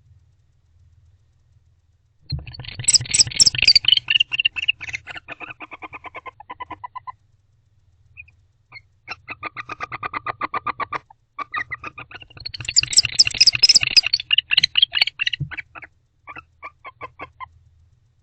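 Barn owls giving rapid, pulsed twittering calls in several bouts, each train of notes slowing and fading toward its end. These are the soft affectionate calls a bonded pair makes in the nest box during courtship.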